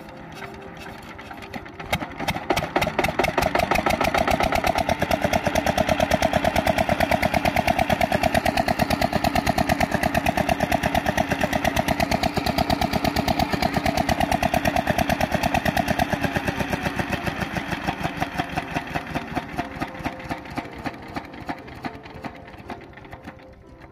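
Single-cylinder 8 HP diesel water-pump engine catching about two seconds in and then running steadily with a fast, even thudding beat while it drives the pump; the sound tapers off over the last few seconds.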